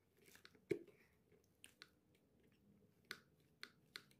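Faint, scattered clicks and taps of fingers handling the plastic shell, visor and chin vent of a KYT K2 Rider full-face motorcycle helmet, the sharpest a little under a second in.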